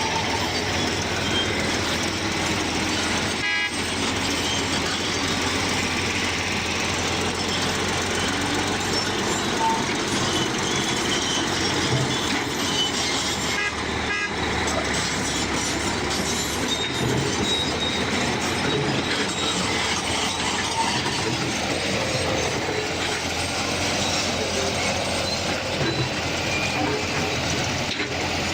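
Bulldozer running at work, a steady, dense mechanical din, broken by two very brief dips, a few seconds in and about halfway through.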